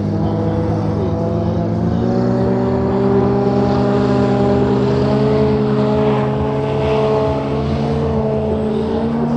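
Engine of an amphibious vehicle running steadily under load, its pitch rising slightly about two seconds in and easing a little near the end.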